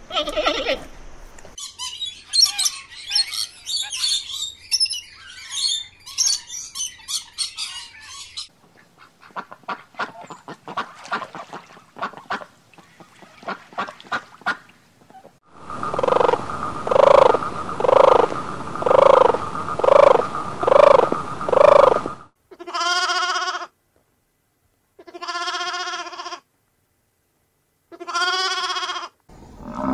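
A string of separately cut animal calls: high chattering, then a run of about seven evenly spaced honking calls roughly one a second, then three separate calls with silence between them near the end.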